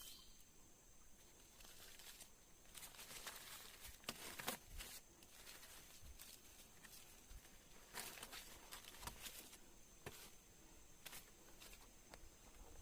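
Faint scattered rustling and clicking, busiest about four seconds in and again about eight seconds in, over a faint steady high tone.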